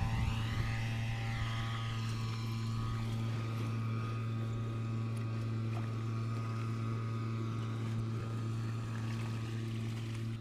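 A motor running steadily at a constant speed, a low, even hum with fainter higher tones above it.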